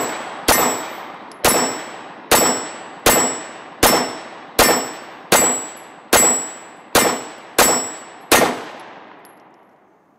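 Glock 17 9mm pistol firing a steady rapid string of about eleven shots, roughly one every three-quarters of a second, each followed by a long echo. The string ends about two seconds before the end with the magazine run dry, the slide locked back.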